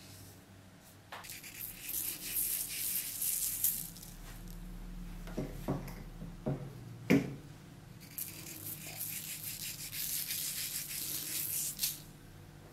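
Cornmeal being sprinkled over fougasse dough on baking paper: a dry, grainy hiss in two stretches, with a few light knocks in between.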